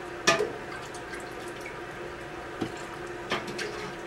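Ladle clinking against a canning funnel on a glass jar while pepper mix is spooned in: one sharp knock about a third of a second in and two softer knocks later, with liquid dripping. A steady low hum runs underneath.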